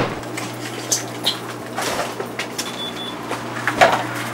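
Steady low hum with scattered clicks and rustles, then a sharp knock near the end as the shop's glass front door is pushed open.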